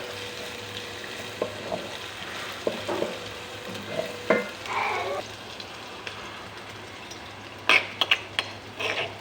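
Turmeric chicken sizzling as it fries in a pan, stirred with a metal spatula that knocks against the pan now and then, with a quick run of clatters near the end.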